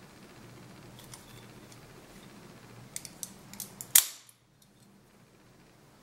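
Lightning double-edge out-the-front switchblade retracting its blade into the handle with one loud, sharp metallic snap about four seconds in. A few lighter clicks and taps from the knife being handled come before it.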